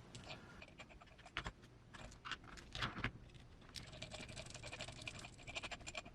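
Faint clicking and scraping of small hand tools on the screws and plastic parts of a small RC truck chassis being taken apart, with a quicker run of light ticks about four seconds in.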